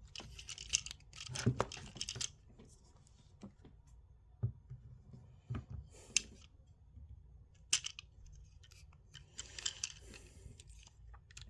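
Plastic Transformers action figure being worked through its transformation by hand: scraping and rubbing of plastic parts, with several separate sharp clicks as joints swivel and snap into place.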